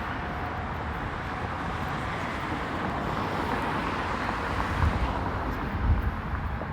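Street traffic going by, a steady rush of road noise with a low rumble that grows stronger about two-thirds of the way through.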